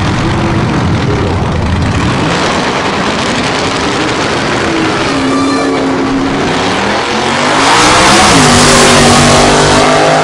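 Ford drag-racing pickup trucks at full throttle on a drag strip, their V8 engines running at high revs. The pitch climbs repeatedly as they accelerate through the gears, loudest about eight seconds in.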